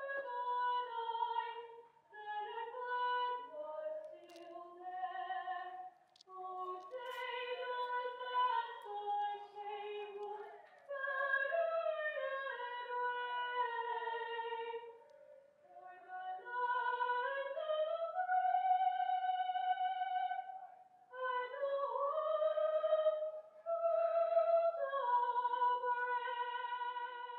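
Slow music carried by a wordless, singing-like melody: long held notes that waver in pitch, sometimes two lines gliding together, in phrases broken by short pauses, with no beat or bass.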